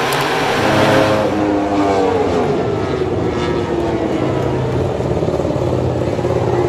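Ducati two-seater MotoGP bike's V4 engine slowing down, its pitch falling over the first couple of seconds, then running low and steady as the bike pulls up.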